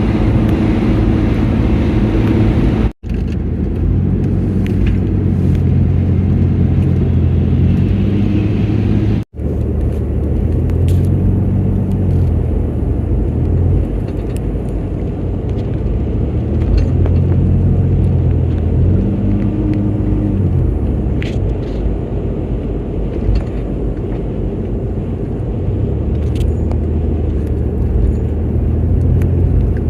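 Road vehicle driving: a steady engine drone with road rumble, cut by two very short dropouts about 3 and 9 seconds in.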